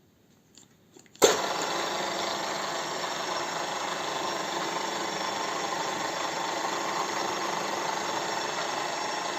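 Vertical drill press switched on about a second in: a few faint clicks, a sharp bang at the switch, then its electric motor and spindle running steadily.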